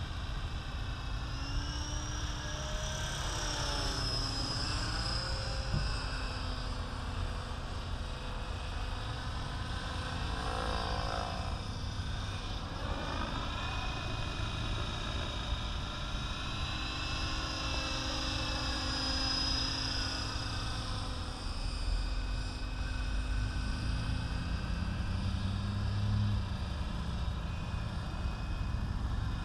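Align T-Rex 550E electric RC helicopter in flight: the whine of its motor and rotor blades, rising and falling in pitch as it manoeuvres and passes.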